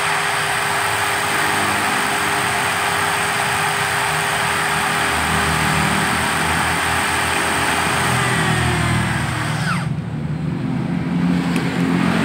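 Electric hand drill spinning a motorcycle engine valve while carbon is scraped off its head, a steady scraping hiss over the drill's whine. About eight seconds in the whine falls as the drill winds down, and the scraping stops about two seconds later. A low rumble runs underneath from about five seconds in.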